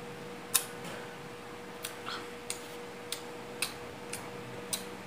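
Wet mouth clicks and smacks from sucking and chewing lemon wedges: about eight short, sharp clicks at uneven intervals, over a faint steady hum.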